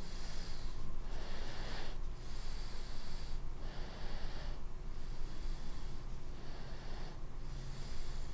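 A person breathing loudly in and out, about seven breaths roughly a second apart.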